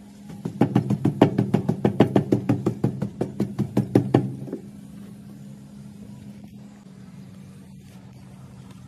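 A hand patting sand quickly, about six pats a second for some four seconds, to pack it down firm, over a steady low hum.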